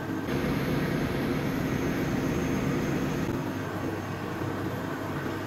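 Steady drone of running machinery with a low hum: engine-room background noise.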